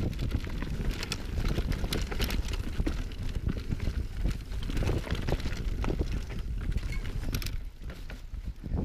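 Mountain bike riding over rough trail: a steady run of small knocks and rattles from tyres and bike over a low rumble of wind on the microphone.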